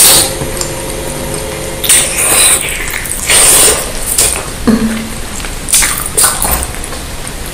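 Close-miked eating sounds: wet chewing and mouth smacking on beef rib meat and a large bakso meatball. They come in several loud bursts, about two seconds in, around three and a half seconds, and again about six seconds in.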